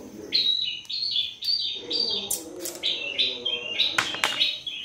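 A small bird chirping in quick, repeated short notes, with a couple of sharp clicks about four seconds in.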